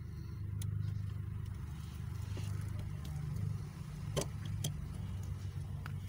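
Sharp plastic clicks as a brake light switch is twisted and pulled free of its brake pedal bracket. There are a few clicks, the loudest about four seconds in with a second one just after. A steady low hum runs underneath.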